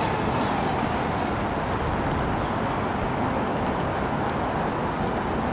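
Fast radio-controlled racing boats running out on the water, heard as a steady rushing drone with no clear engine pitch.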